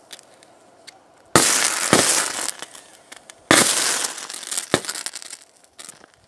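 High-current DC arcing as a copper rod fed by four lead-acid batteries in series is pressed onto a laptop's circuitry. Two loud bursts of arc crackle and sparks, about two seconds apart, each starting suddenly and sputtering out over a second or two, with a few smaller crackles near the end.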